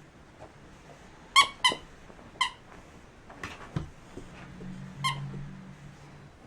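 A dog's squeaky toy squeaking four short, sharp times, two in quick succession about a second and a half in, then one more, then another near the end, as it is bitten. A low steady drone underlies the second half.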